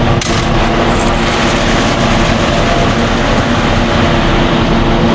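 Concrete mixer truck's diesel engine running steadily at raised revs during a concrete pour, with two short sharp scrapes or clanks in the first second.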